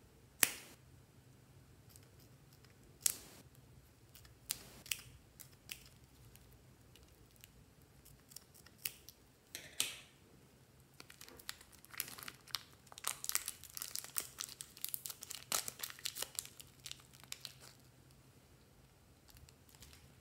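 Scissors snip the tip off a plastic piping bag, giving a few sharp, separate clicks. About halfway through, several seconds of dense plastic crinkling follow as the bag is squeezed and handled.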